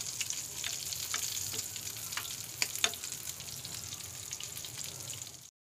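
Raw minced-meat kebabs sizzling in shallow oil on a flat tawa, a steady hiss, with a few sharp clicks as a metal spoon nudges them across the pan. The sound cuts off suddenly just before the end.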